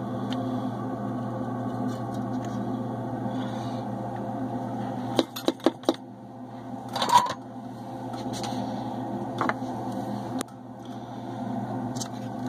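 Steady low electrical hum, broken about five seconds in by a quick run of four sharp clicks, then a louder knock a couple of seconds later and a few scattered clicks: small tools and the monitor chassis being handled during soldering work.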